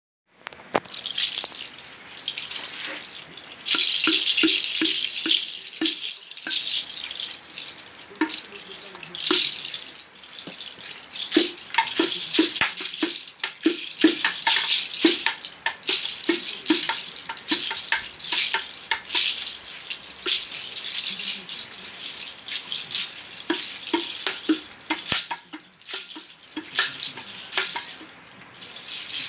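Hand percussion: a rattle-type shaker shaken in an uneven rhythm, with many sharp clicks and short hollow knocks among the shakes.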